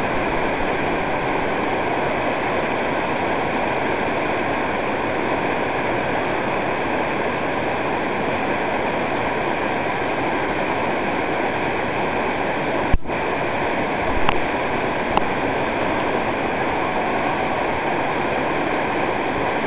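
Whitewater rapid rushing steadily over boulders: loud, even churning water. A few short knocks break in about two-thirds of the way through.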